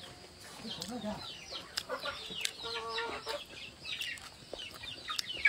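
Chickens clucking, with many quick high chirps that fall in pitch, a few each second, and one longer pitched call in the middle.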